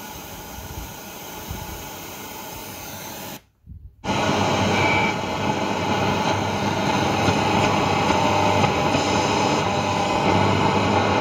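Radio static from a stereo's tuner as the tuning knob is turned between stations: an even hiss that cuts out for about half a second just over three seconds in, then comes back much louder.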